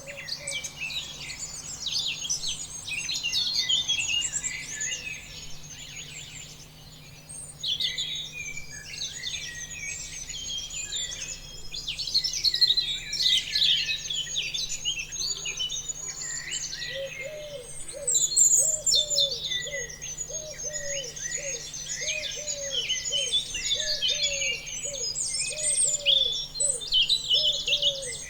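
A chorus of many songbirds chirping and trilling over one another without a break. About halfway through, a lower, evenly repeated call joins in, sounding two or three times a second.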